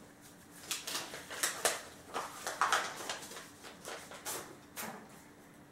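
Paper rustling and crackling as an envelope and card are handled and opened: a string of irregular soft crackles that dies away near the end.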